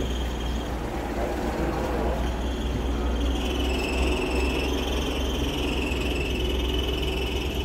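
TCM forklift engine running steadily with a constant low rumble. A high, steady whine sits over it and returns about three seconds in.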